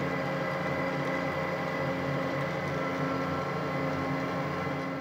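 Metal lathe running steadily while a tool bit takes a skimming cut across the worn copper commutator of an electric lawnmower motor's armature.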